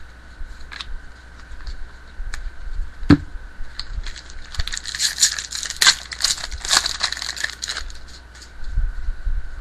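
Baseball trading cards being handled and shuffled: crisp rustling and clicking of card stock, densest in the middle, with a soft bump about three seconds in.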